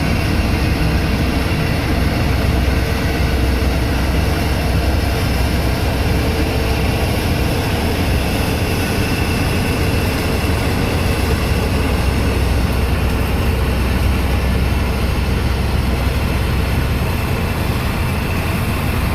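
New Holland TC5.30 combine harvester working: a steady, deep engine drone mixed with the noise of its running machinery.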